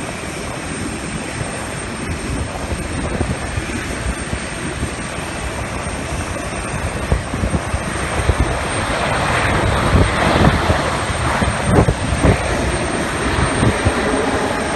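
Airbus A340-600 airliner landing, its four Rolls-Royce Trent 500 jet engines making a steady noisy roar that swells louder about eight seconds in as the jet rolls out along the runway after touchdown.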